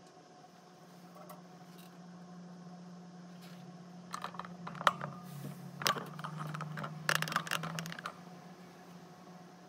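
Handling noise: a cluster of small clicks, taps and short scrapes for about four seconds in the middle, over a steady low hum.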